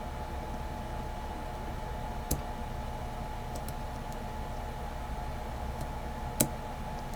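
Small metallic clicks of a lock pick working the pin stack of a Brinks 50 mm padlock: two sharp clicks about four seconds apart, with a few fainter ticks between.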